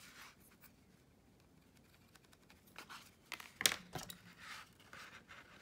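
Paper and small craft tools being handled: a few light clicks and paper rustles after a quiet start, with one sharper click in the middle.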